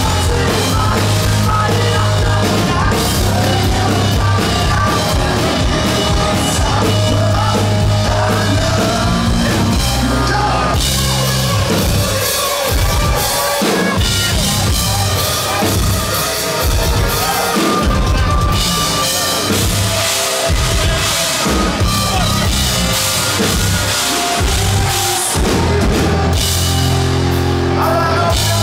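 Live hard rock band playing loud and dense: driving drum kit and electric bass guitar with distorted guitar and a female singer's vocals.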